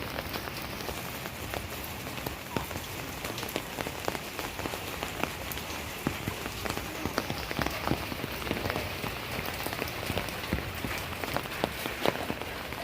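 Steady rain falling on surfaces, an even hiss broken by frequent sharp taps of nearby drops.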